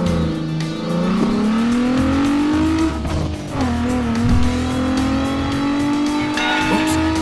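Race-car engine revving sound effect: a motor tone that climbs in pitch for about three seconds, drops back, then climbs slowly again. Background music with a steady beat plays underneath.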